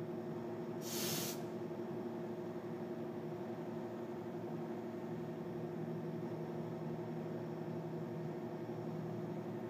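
Milling machine spindle running while its engraving cutter cuts lettering into a metal plate: a steady hum with several held tones. A short hiss about a second in.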